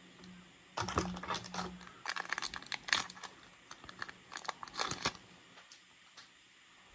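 Foil booster pack wrapper being crinkled and torn open by hand: a run of sharp crackles and rips lasting about four seconds, then quieting.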